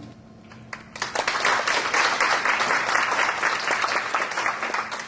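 Audience applauding at the end of a talk. The clapping starts about a second in and fades out near the end.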